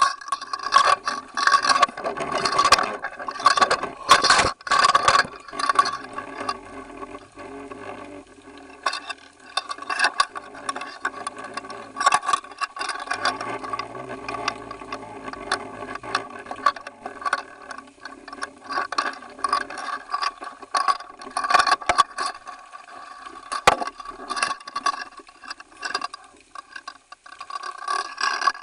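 Underwater audio from a camera rigged on a fishing line while a hooked tope pulls on it: continuous rattling and clicking from the camera and its line fittings over a steady hum, heaviest in the first few seconds, with occasional sharper clicks later.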